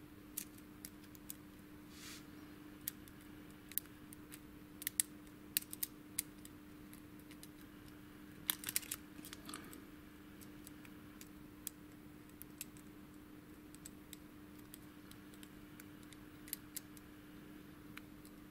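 Lock pick working the pins inside a Thirard side-drilled-key euro cylinder, giving faint, scattered metallic clicks and ticks, some in quick clusters. A steady low hum runs underneath.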